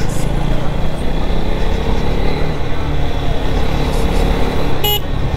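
KTM Duke 250's single-cylinder engine running under way, with a steady rush of wind noise over the microphone and the engine note rising slightly midway. A short, high-pitched beep sounds near the end.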